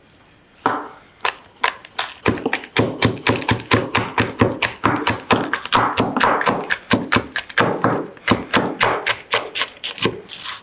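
Knife chopping a green hot pepper into rings on a wooden cutting board: crisp chops that start a few at a time and quicken to several a second, then stop shortly before the end.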